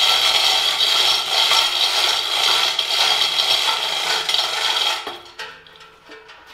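Chain hoist working the heavy cast-iron stoker engine on its chain, with a steady, loud chain rattle. It stops abruptly about five seconds in and is followed by a few light metal clinks.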